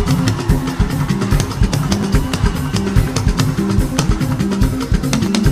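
Live gospel band playing an instrumental passage: drum kit with a fast, steady beat over a bass line and guitar.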